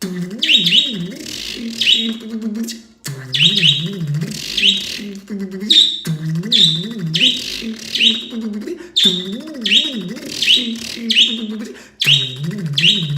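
A man imitating an engine cranking with his voice, a low warbling drone whose pitch wavers up and down in runs of about three seconds with short breaks between them, while a pet bird chirps loudly over it in repeated high, falling chirps.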